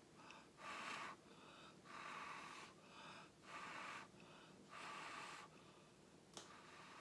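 A person blowing breath onto wet poured acrylic paint in repeated short puffs. There are about four, roughly one every second and a half, each lasting half a second to a second, and they are faint.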